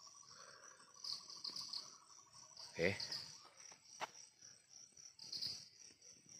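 Faint night-time insect chorus: high chirps in short bursts every second or two, over a steady trill that stops about two and a half seconds in. Just before three seconds in there is a brief loud noise, the loudest sound here, and a sharp click follows about a second later.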